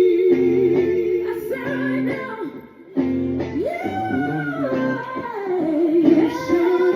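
Live singing over band accompaniment: the singer holds long notes with vibrato and slides between pitches, with a brief break just before three seconds in.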